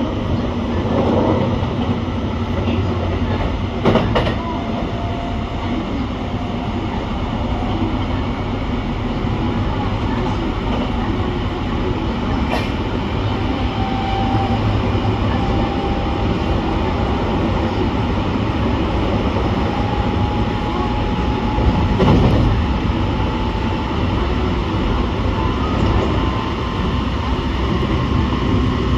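Electric train running at speed, heard from inside the carriage: a steady rumble of wheels on rail with a faint motor whine that slowly rises in pitch as it accelerates, and a couple of sharp clicks.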